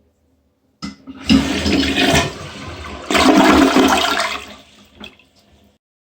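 American Standard Champion 4 Max 1.28-gallon-per-flush toilet flushed with a quick flick of the handle, giving a short partial flush: a click of the handle, then rushing water that surges a second time about three seconds in and tapers off near five seconds, ending with a short click.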